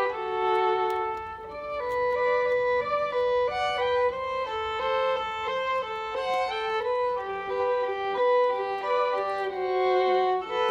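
Background music: a violin playing a melody over an accompaniment.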